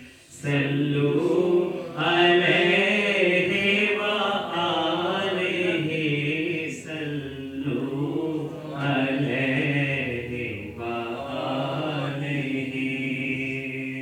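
A man singing an Urdu naat unaccompanied, in long wavering phrases broken by short pauses for breath.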